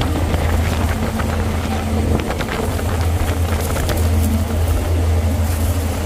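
A boat's engine running with a steady low drone, mixed with wind and water noise and some faint crackles.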